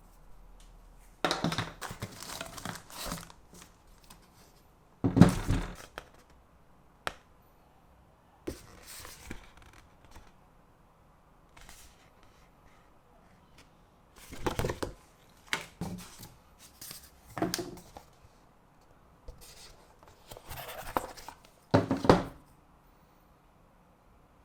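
Keyboard packaging handled by hand: bursts of crinkling and tearing, with a few knocks as parts of the box are set down, the loudest about five seconds in and near the end.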